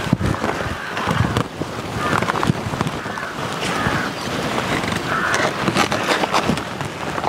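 Large banana leaves rustling and crackling as they are grabbed and pulled on the plant, with many short crackly strokes over a steady noisy background.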